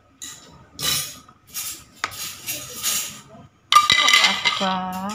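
Stainless-steel masher and spoon scraping and clinking through soft boiled cassava in a plastic bowl, in a run of short strokes that is loudest about three-quarters of the way in. A short hummed voice sound comes near the end.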